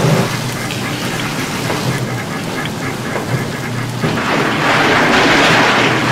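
Egg batter sizzling in hot, oiled rectangular tamagoyaki pans over gas burners, a continuous rain-like hiss over a low steady hum. The sizzle grows louder about four seconds in.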